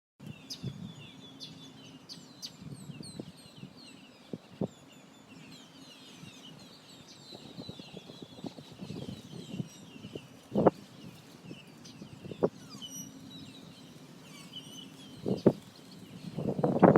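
A chorus of many small birds chirping and twittering, with lower, louder sounds breaking in now and then. These build into a dense cluster near the end.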